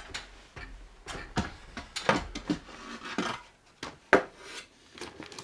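Irregular knocks and scrapes of wooden boards and tools being handled, with one sharp knock about four seconds in.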